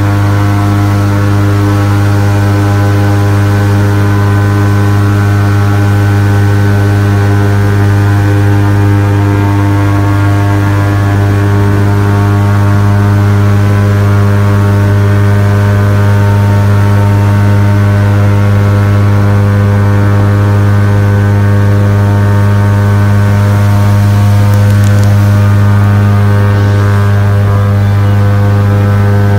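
Airboat's engine and large pusher propeller running at a steady cruising speed: a loud, constant drone with a deep fundamental that holds one pitch throughout.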